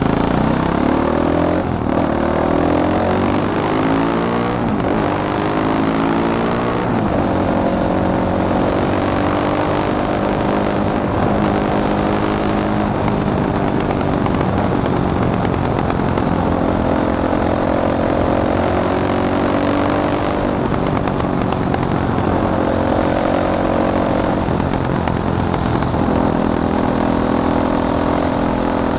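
Fantic Caballero 500's single-cylinder engine running. Its pitch climbs in several short rises with brief breaks over the first seven seconds, then holds fairly steady with small rises and falls in engine speed.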